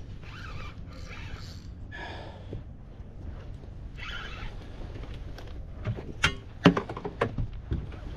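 Spinning rod and reel in use while fighting a jack crevalle: a few short hissing bursts, then a quick run of sharp clicks and knocks from about six seconds in, over a low steady rumble.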